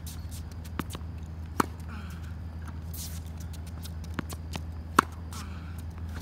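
A tennis ball struck twice by a racket, each a sharp pop with a short string ring, about three and a half seconds apart. Each hit comes just after the ball bounces on the hard court. Shoe scuffs and a steady low hum sound underneath.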